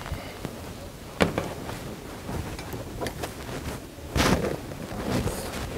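Handling noises as a bag is set down at a desk and rummaged through: a sharp knock about a second in, then a louder rustling scuffle about four seconds in, over low room noise.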